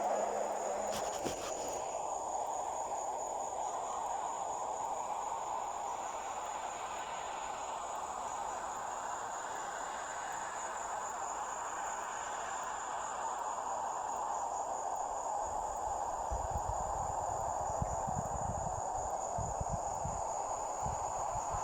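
Crickets chirping in a steady, pulsing high trill over an even rushing background noise, with a few low rumbles near the end.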